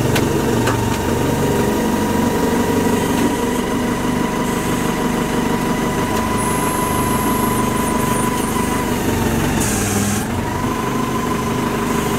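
Wheel loader's diesel engine idling steadily, with a steady high whine over it that dips briefly about ten seconds in.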